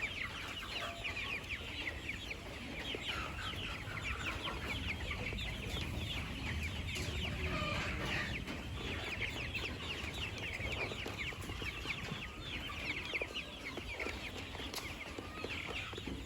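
A flock of Kuroiler chickens calling together in a dense, continuous chorus of many overlapping short, high chirps and clucks.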